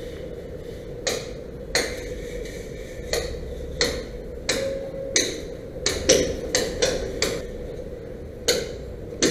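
Hammer blows on a building site: a series of sharp, irregular knocks, roughly one a second at first and closer together towards the end, over a steady hum.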